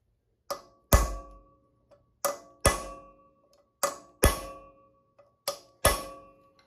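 Hammer striking a 5 mm punch held on a sheared exhaust stud, to flatten its broken top. It comes in four pairs of blows about a second and a half apart, each pair a light tap then a harder hit, and every blow rings with a metallic tone.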